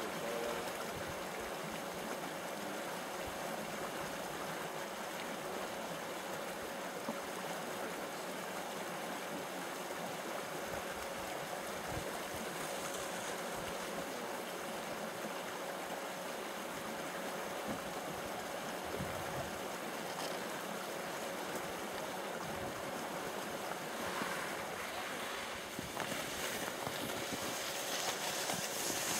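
Steady outdoor background noise, an even hiss with a faint steady hum under it, getting louder over the last few seconds.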